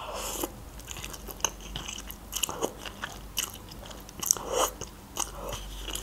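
A person eating instant noodles close to the microphone: slurping a forkful in, then chewing, with irregular wet mouth clicks.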